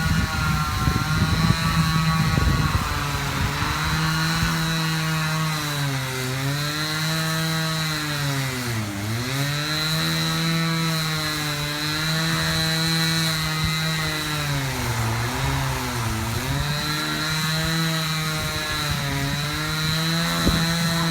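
Chainsaw engine running at high revs while cutting. Its pitch sags several times as the chain bites into the wood, most deeply about nine seconds in, then climbs back.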